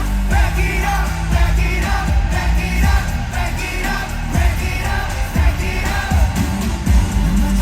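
K-pop group singing live over a pop backing track with heavy bass, amplified through an arena PA.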